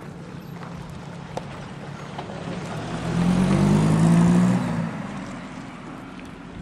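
A four-wheel-drive vehicle driving past close by: its engine sound builds, peaks about three to four and a half seconds in, and fades as it goes by, the engine note dropping slightly as it passes.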